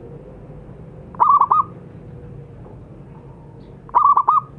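Zebra dove (perkutut) cooing: two short phrases of about four quick notes each, one about a second in and one near the end.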